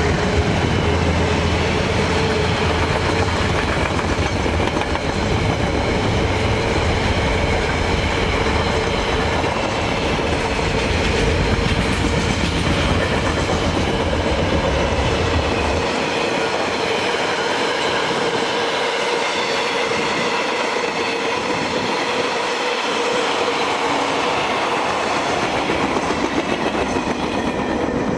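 Container freight wagons rolling past at speed, wheels clattering over the rail joints under a steady ringing tone from the wheels. A deep rumble underneath drops out about halfway through, and the last wagon goes by near the end.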